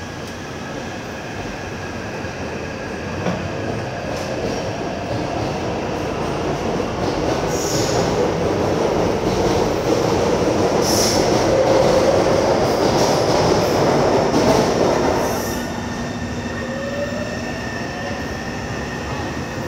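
Taipei Metro C301 electric train with retrofitted propulsion equipment running through the station. Rail and motor noise builds to a loud peak with some squeal, then drops off suddenly, and a rising motor tone follows near the end.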